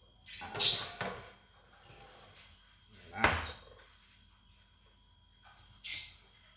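Kitchen cookware being handled while a hot metal pan of steamed macaroni schotel is taken out: a brief clatter under a second in, a sharp knock about three seconds in, and a short high scrape near the end.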